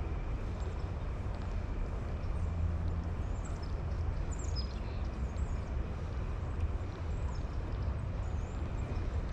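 Steady low rumbling outdoor ambience with no letup, with a few faint, short, high bird chirps scattered through it.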